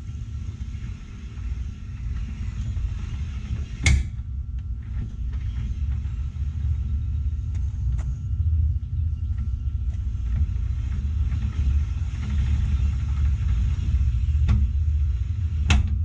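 GM 12-bolt open differential on a 1969 Chevelle with the rear wheels off the ground: a steady low rumble that slowly grows louder, with sharp clunks about four seconds in and near the end. The clunks are the worn spider gears knocking as the wheel stops, the sign of a bad open differential.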